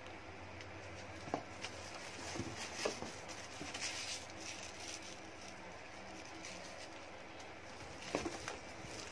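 Plastic wrap crinkling and light knocks as a plastic-wrapped air fryer is handled in its cardboard box. The crinkling comes in scattered bursts, busiest around four seconds in and again near the end, over a faint steady hiss.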